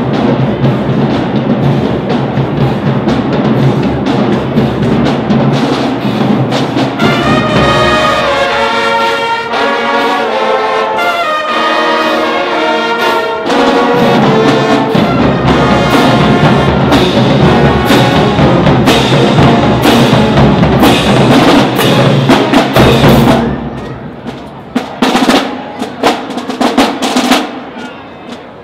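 HBCU college marching band playing as it parades: brass and drums together, with the horns playing on their own for several seconds around the middle. Near the end the band drops out and only the drum line is heard, separate drum strokes.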